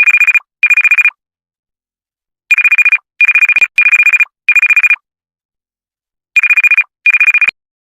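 Telephone ringtone: a trilling electronic ring at a steady high pitch, in short rings. There are two rings, a pause, four rings, a pause, then two more.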